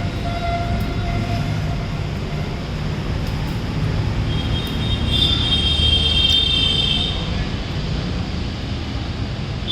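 Steady low rumble of a vehicle engine, with a high, thin tone in the middle lasting about two seconds.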